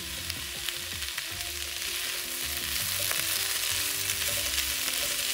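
Sliced hyacinth beans and potato sizzling in oil in a wok as they are stir-fried, with a few light scrapes and taps of a wooden spatula against the pan.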